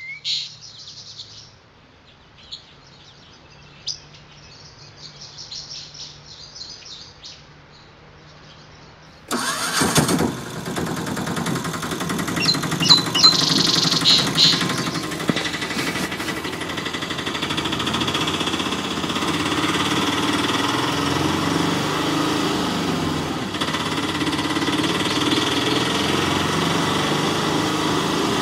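Faint bird chirps, then an engine starts abruptly about nine seconds in and keeps running steadily.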